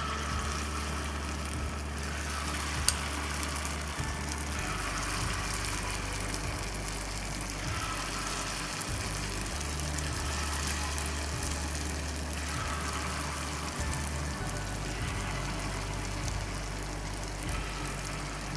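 Hot oil sizzling and bubbling steadily as dollops of flour batter with onion and anchovies deep-fry in it, with one sharp click about three seconds in.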